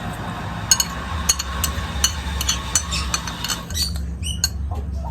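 Cutlery clinking and scraping against a plate during eating: a run of sharp, irregular clinks, followed by a few short high squeaks near the end.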